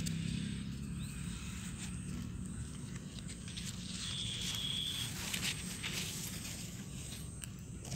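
Eggplant leaves rustling and brushing against a handheld phone as it is pushed among the plants, in scattered soft scrapes and clicks over an outdoor hiss. A single high steady tone lasts about a second near the middle.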